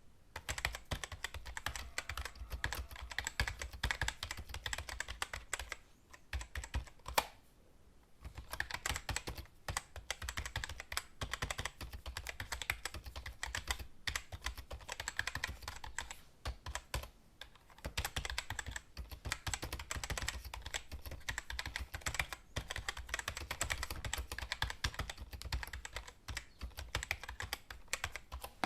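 Typing on a computer keyboard: fast, continuous keystroke clicks in runs, with a short pause about seven seconds in and brief lulls later.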